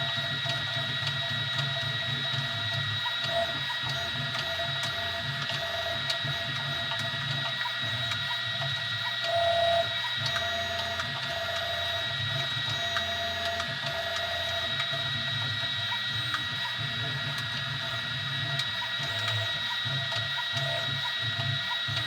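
Easythreed X2 desktop 3D printer running a print: a steady high whine with a lower motor tone that shifts and comes and goes as the print head moves, and a brief louder note about nine and a half seconds in.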